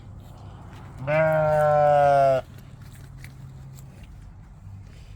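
A single long bleat from a sheep or goat, starting about a second in and lasting well over a second, over a low steady hum.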